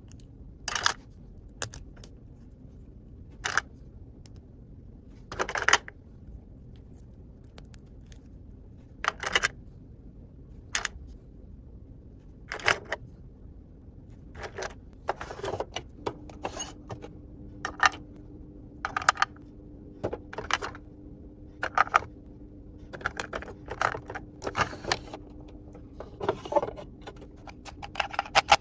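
Small plastic toy kitchen pieces being handled: sharp clicks and clacks, a few seconds apart at first, then more frequent and in quick clusters in the second half.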